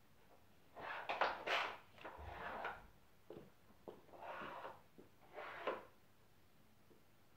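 Wooden Dog Twister treat puzzle being worked by a dog: several short runs of wood scraping and sliding on wood, with a few sharp clicks between them.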